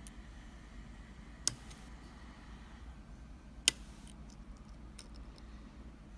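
Small sharp metallic clicks from picking an Iseo dimple-lock cylinder: two loud clicks about two seconds apart and a fainter one near the end, as the pins are picked back toward a false set. A low steady hum runs underneath.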